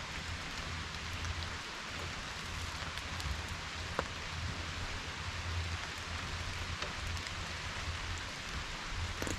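Steady rain falling, with one sharp click about four seconds in.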